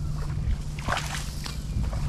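Footsteps swishing and crunching through tall dry grass, over a steady low rumble.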